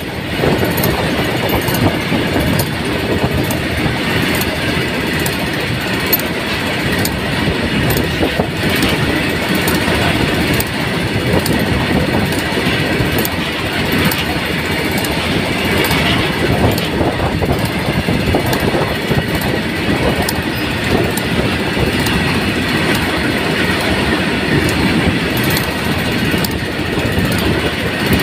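BTPN petrol tank wagons of a freight train rolling past at speed: a steady rumble of steel wheels on the rails with rapid repeated clacking over the rail joints.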